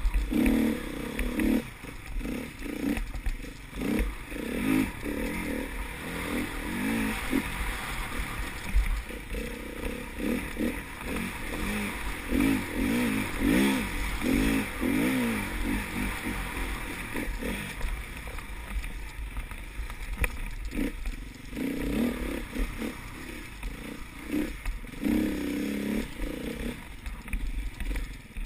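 Enduro dirt bike engine heard from an onboard camera, revving up and falling back over and over as the rider accelerates and backs off along the track.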